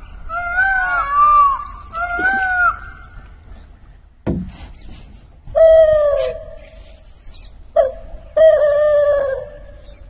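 Electronic bird-repellent device sounding loud, harsh animal calls to scare birds and animals off a fish pond: several pitched calls that bend and fall in pitch, in bursts, with a single sharp bang about four seconds in.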